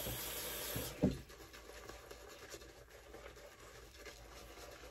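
Faint scratchy rubbing of a badger-hair shaving brush working lather on a face. Over the first second a steady hiss of running water, which stops just before a single knock.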